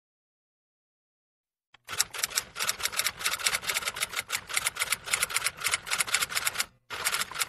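Typing sound effect: a rapid run of keystroke clicks, about ten a second, beginning about two seconds in. It breaks off briefly near the end, then a short final run of clicks follows.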